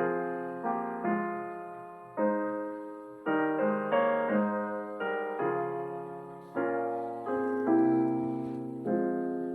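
Slow solo piano music: about a dozen chords, each struck and left to ring and fade before the next.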